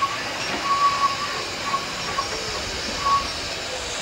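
Steam locomotive moving slowly with a steady hiss of steam, a thin high squeal coming and going, and a few light knocks.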